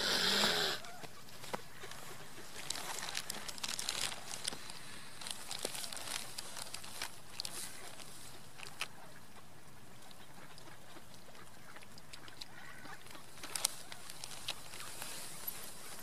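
Mallard ducks and a mute swan on a lakeshore: a brief noisy duck call right at the start, then a steady soft hiss of wind and lapping water with scattered small clicks and ticks.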